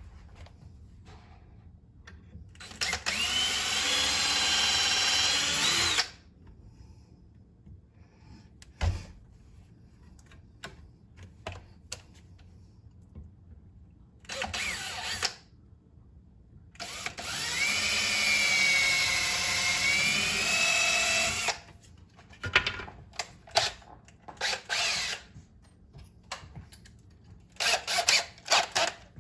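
Power drill boring handle holes through a cabinet door: two main runs of about three and five seconds with a short burst between. The motor's whine rises and dips as the bit cuts, with light clicks and knocks between the runs.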